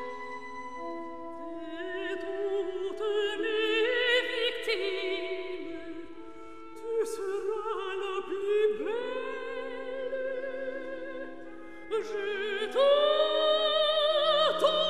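Operatic female voice, mezzo-soprano range, singing long held notes with wide vibrato over sustained orchestral chords. The second phrase slides up into its note, and the last phrase is the loudest.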